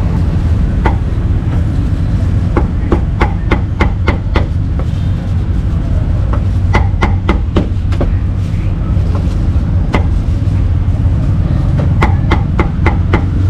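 Cleaver chopping braised meat on a thick wooden chopping block: sharp chops in quick runs of several strikes, about four a second, with pauses between runs, over a steady low background rumble.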